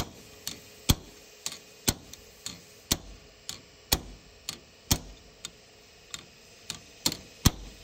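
Hammer blows on a punch driven against the seized pins of a PCC streetcar brush holder clamped in a vise: a regular run of sharp strikes about two a second, every other one heavier. The pins are frozen and very stubborn, and the blows do not break them free.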